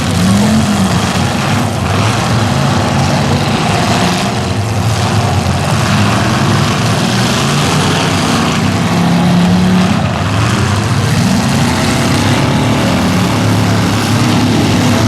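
Engines of several demolition derby cars running and revving hard, their pitches rising and falling over one another, loud and steady throughout.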